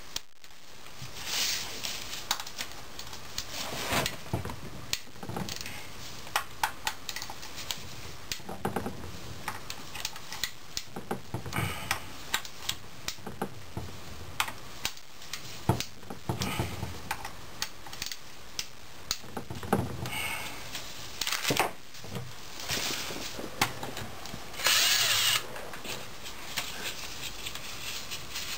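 Bolts being backed out of a 4L80E transmission's pressure switch manifold: a string of short metallic clicks and clinks from hand tools and bolts. Near the end an 18-volt cordless drill-driver spins the bolts out in a burst of under a second.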